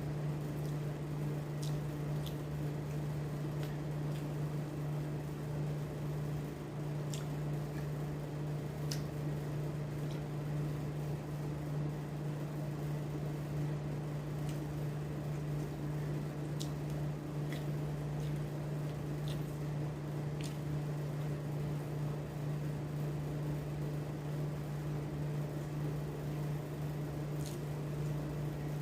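Steady low mechanical hum with a faint noise bed and a few scattered small clicks and ticks.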